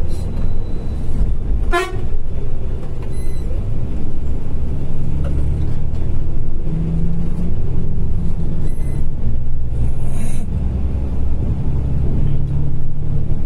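Steady diesel engine and road drone heard inside the cab of a moving Volvo 9600 B8R coach. A short horn toot comes about two seconds in, and fainter toots follow later.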